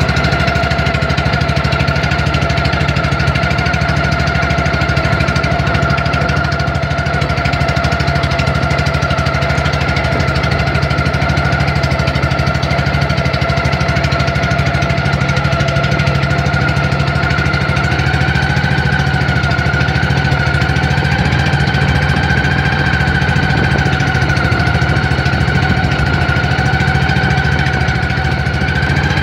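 Outrigger boat's engine running steadily while towing an inflatable tube: a loud, even knocking drone with a steady whine that rises slightly in pitch a little past the middle.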